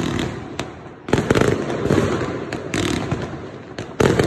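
Fireworks going off overhead: several sharp bangs of aerial shells bursting, the loudest near the end, over a steady din of more fireworks.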